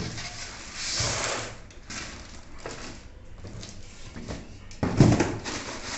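Polystyrene foam packing and a cardboard box being handled: rubbing and scraping with a few light knocks, and a heavier thump about five seconds in.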